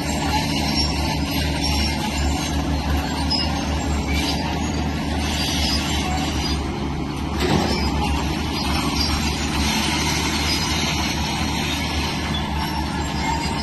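Heavy crawler earthmover's diesel engine running steadily under load, with high metallic squealing and scraping from its steel tracks and the stone being moved. A brief louder bump comes about seven and a half seconds in.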